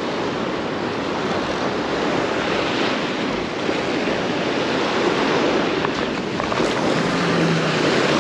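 Ocean surf washing on a rocky shoreline, a steady rush of waves, with wind buffeting the microphone.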